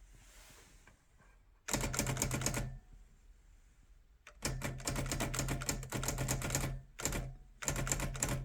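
Olympia manual portable typewriter being typed on: several quick runs of keystrokes, the first about two seconds in.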